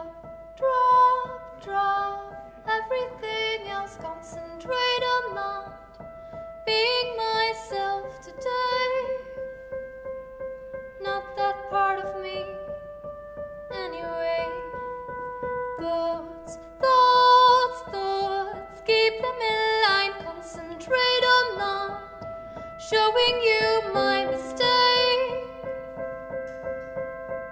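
A woman singing, accompanying herself on a Roland FP-80 digital piano: sung phrases with short breaks between them, over held piano chords.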